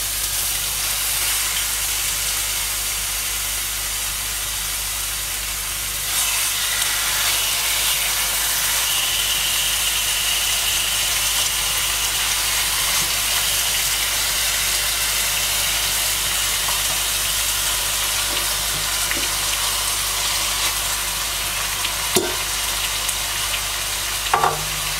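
Hot oil sizzling steadily as masala-coated kingfish (surmai) steaks are laid into the pan one by one, the sizzle growing louder about six seconds in. A sharp tap comes near the end.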